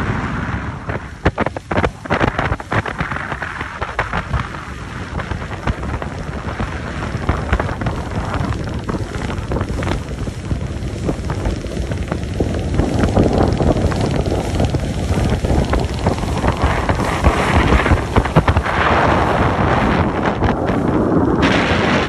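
Wind buffeting the microphone aboard a moving motorboat: a heavy rumbling rush full of crackling gusts, louder from about halfway on.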